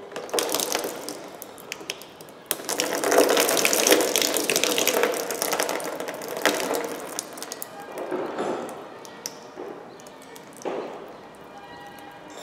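Clicking and rattling as a car's thermostat housing is worked loose by hand. About two and a half seconds in, a thick stream of emulsified, oil-contaminated engine coolant starts pouring and splashing into a drain container below, loudest at first and then tapering off.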